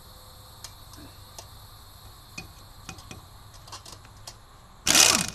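Light metallic clinks of a socket and extension being worked onto a lug nut. Then, near the end, a short loud burst from a Harbor Freight Earthquake XT air impact wrench on the wheel's lug nut, winding down in falling pitch as the trigger is let go.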